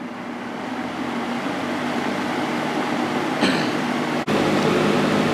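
Air King V20E box fan with a GE two-speed reversible motor running on high: a steady motor hum with rushing blade air that grows louder as the fan comes up to speed. A brief click about three and a half seconds in.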